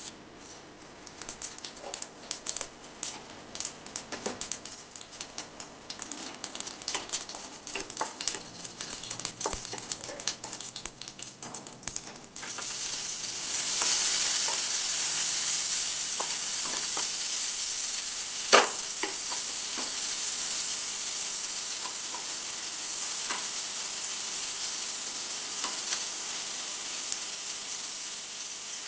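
Food frying in a hot pan. Scattered crackles and pops give way, about twelve seconds in, to a sudden, louder, steady sizzle. A sharp clink of a utensil against the pan comes partway through.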